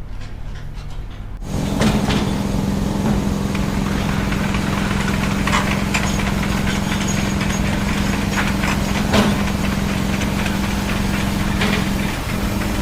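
A bulldozer's diesel engine running at a steady speed, with scattered short knocks and clanks. A quieter engine hum gives way to the louder, steady engine note about a second and a half in.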